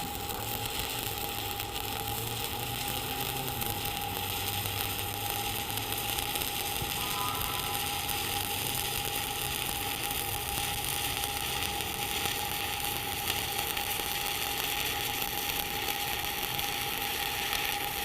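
Welding arc crackling and sizzling steadily while a fill pass is run on a T-joint.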